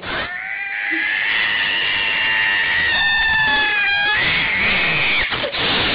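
Ginger cat yowling angrily: one long, steady caterwaul of about five seconds that wavers briefly in the middle. After a short break, a second yowl begins near the end.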